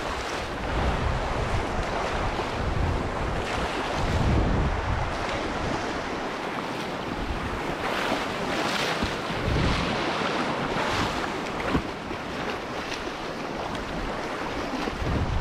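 Whitewater river waves rushing and splashing around a canoe as it runs a rapid, with wind buffeting the microphone in low gusts.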